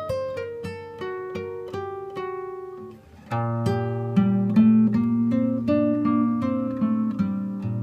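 Background music of plucked string notes picking out a melody; after a short dip about three seconds in, deeper bass notes join and the music gets fuller.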